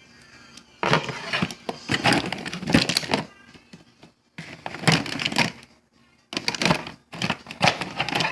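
Packaging being handled and rummaged through, crackling and rustling in three bursts of a second or two each.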